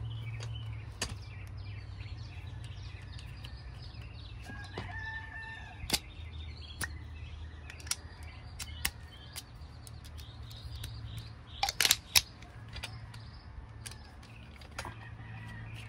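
Small clicks and scrapes of a flat-blade tool and screwdriver bit working the plastic battery cap at the end of a digital torque wrench's handle, with a sharp click about six seconds in and a few more near twelve seconds. A steady low hum runs underneath.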